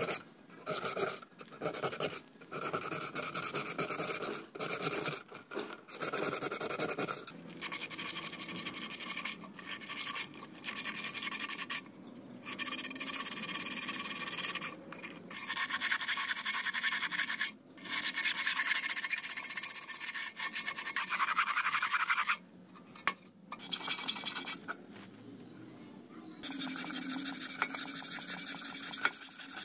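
Sandpaper rubbed by hand over the rusted metal of an antique lamp, scratchy strokes in short stretches broken by abrupt cuts. Near the end a wire brush scrubs a metal tube in a steadier run.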